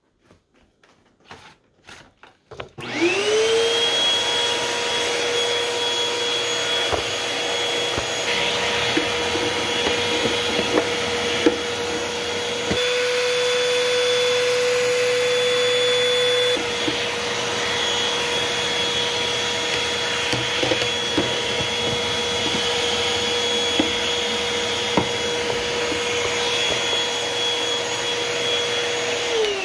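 Bagless vacuum cleaner switched on about three seconds in, its motor whine rising quickly to a steady pitch as it sucks dirt and spiderwebs out of the inside of an acoustic guitar. There are scattered small clicks throughout. For a few seconds in the middle the pitch lifts slightly and the hiss grows brighter. Near the very end the pitch starts to drop as it switches off.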